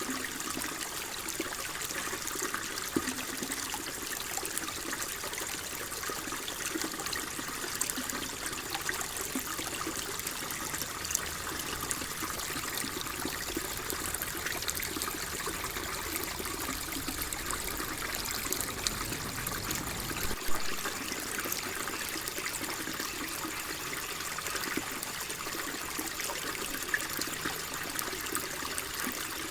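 Water flowing and trickling steadily, with a hiss and small splashes and gurgles.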